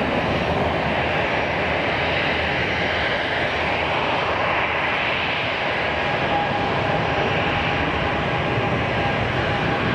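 Boeing 777 jet engines running as the airliner rolls along the runway: a steady, loud roar.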